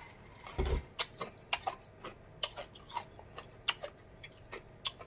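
A man's lip smacks and mouth clicks while he savours a sip of a drink: about a dozen short, sharp clicks at irregular intervals, with one low thud under a second in.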